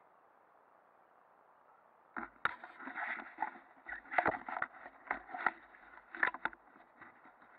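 Irregular rustling and sharp knocks close to the microphone for about four seconds, starting about two seconds in, with no engine running.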